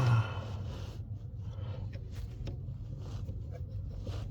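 Faint scrapes and small clicks of a plastic brake light switch being worked onto the pedal bracket by hand, over a steady low hum, with a brief louder noise right at the start.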